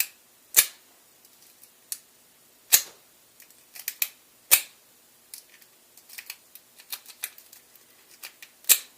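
Lock pick being zipped out across a padlock's pin stack under a tension wrench: four sharp metallic clicks, with lighter ticking and rattling of pick and pins between them. The lock doesn't open, which the picker puts down to too much tension.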